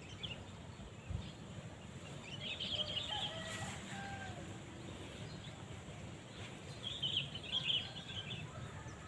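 Small birds chirping in two short bursts of quick calls, about three seconds in and again near the end, with a few thin whistled notes between, over steady low outdoor noise.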